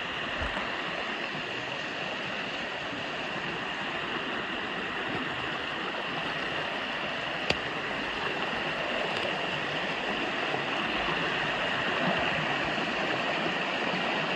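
Fast-running creek, a steady rush of water that grows a little louder toward the end. One sharp click a little past halfway.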